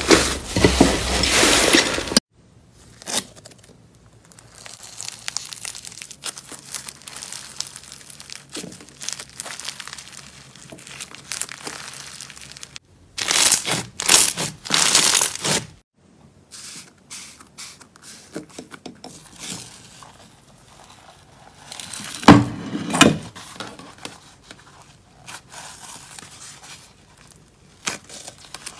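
Slime being kneaded, squeezed and pressed by hand: quick squishing, crackling and popping sounds. They are loudest near the start, in a stretch around the middle where foam-bead slime is pressed under the palm, and again about three quarters through.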